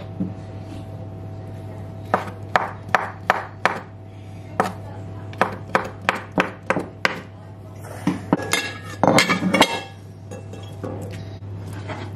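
Kitchen knife chopping beetroot on a wooden cutting board: a series of sharp knocks, about three a second, then a quick flurry of clinks about eight seconds in. A steady low hum runs underneath.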